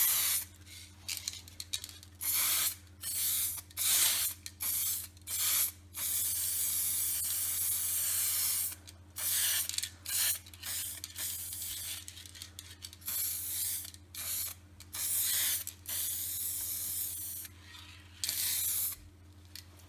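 Aerosol spray-paint can spraying in repeated short bursts of hiss, with two longer sprays of two to three seconds each, one about six seconds in and one about fifteen seconds in.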